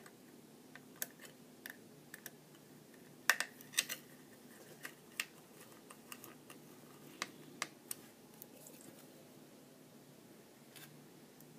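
Small screwdriver and tiny screws clicking and tapping against an iPhone 5's metal housing and logic board while the hex screws are driven in: scattered irregular ticks, the loudest pair a little over three seconds in.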